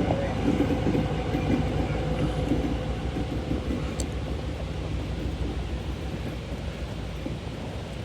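Freight train led by an EMD GP38 diesel locomotive rolling past: a steady low engine and rail rumble that gradually fades as it moves away.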